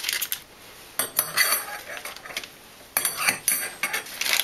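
Steel S-hooks of an IKEA Grundtal kitchen rail clinking against each other and against the steel rail as they are hung on it one by one. There are two spells of clinking, one about a second in and one from about three seconds in.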